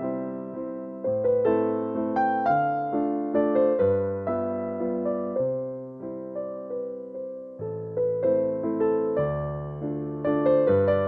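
Background piano music: a slow melody over bass notes, each note struck and fading.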